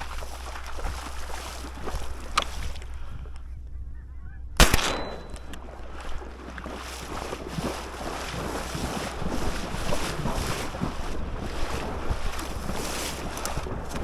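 A flock of geese honking over steady wind on the microphone, with one sharp, loud shotgun shot about four and a half seconds in.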